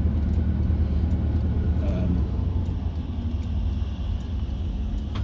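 Motorhome driving slowly, heard inside the cab: a steady low engine and road drone.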